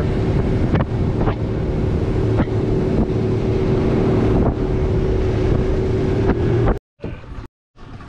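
Boat motor running at a steady pitch while the boat moves, with wind on the microphone. It cuts off suddenly near the end.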